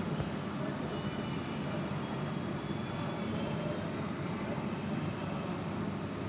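Steady low rumble of background noise, even throughout with no distinct events.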